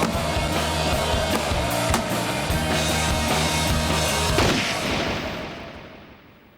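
Dramatic action score with driving bass and sharp percussive hits, one heavy hit about four and a half seconds in, then the music fades out to silence near the end.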